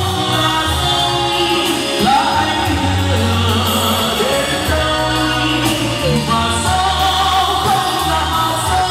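Male singer singing live into a microphone over instrumental accompaniment with sustained bass notes.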